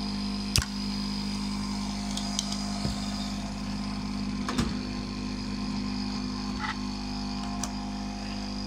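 Hot air rework gun blowing steadily on a circuit board, a steady whirring hum, as it heats the solder joints to free an electronic component. A sharp click sounds about half a second in, with a few lighter clicks and knocks later.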